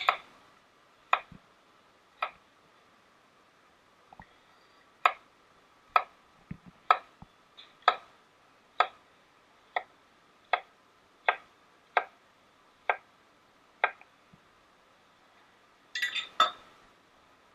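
Kitchen knife cutting a carrot on a cutting board: a series of sharp knocks of the blade on the board, roughly one a second, with a pause of a few seconds early on and a quick cluster of cuts near the end.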